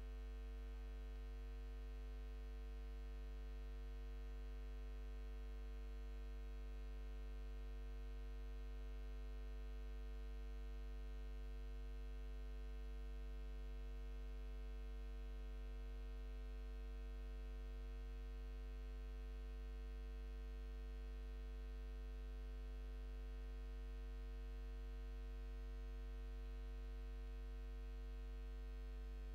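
Faint, steady low electrical hum with a stack of buzzy overtones, unchanging throughout.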